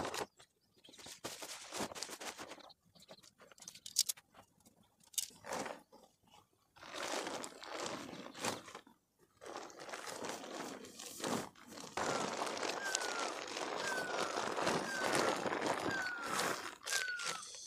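Tent fabric and a plastic tarpaulin rustling and crinkling in irregular bouts as they are folded and packed. From about two-thirds of the way in, a short falling whistle repeats roughly every three-quarters of a second.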